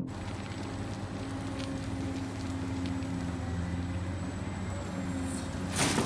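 Diesel engine of a large Caterpillar hydraulic excavator running steadily under load as it digs and loads a dump truck, with a louder noisy burst near the end.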